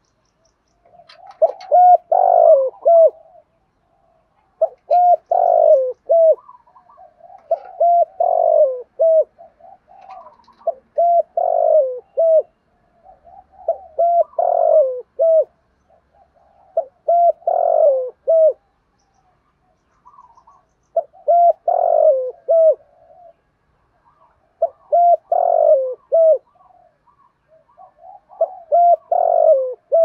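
Spotted dove cooing: the same short phrase of several coos repeats about every three seconds, around nine times.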